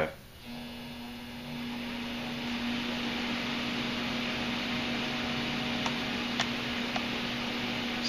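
Duct Blaster test fan speeding up, then running steadily. A steady hum comes in about half a second in, and rushing air builds over the next two seconds. The fan is pressurizing the taped-off ductwork toward 25 pascals for a duct leakage test.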